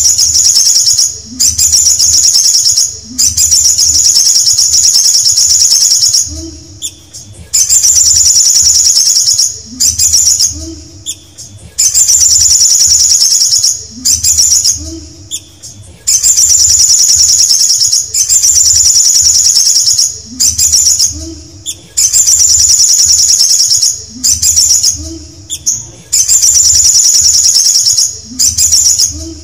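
Male olive-backed sunbird singing loudly in a cage: bursts of a fast, high-pitched trill a couple of seconds long, repeated one after another with short pauses between.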